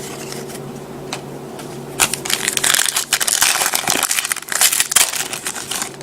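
Trading card pack wrapper being torn open and crinkled: a run of crackling from about two seconds in until about five seconds in, over a faint steady hum.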